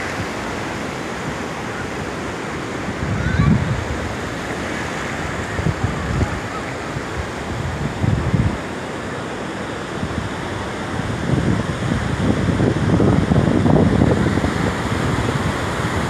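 Sea surf breaking and washing up a sandy beach, a steady wash of water. Wind buffets the microphone in low gusts, heaviest in the later part.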